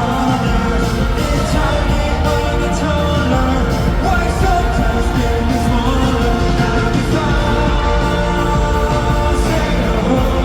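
Live K-pop performance through a concert PA: sung vocals over a loud, steady backing track.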